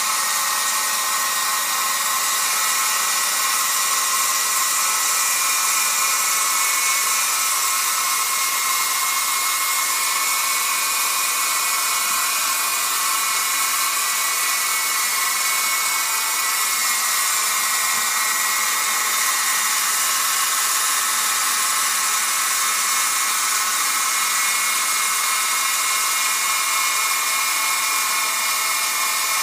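Toy RC helicopter's small electric motors and rotors whirring in a steady high whine as it spins around on a tabletop without taking off.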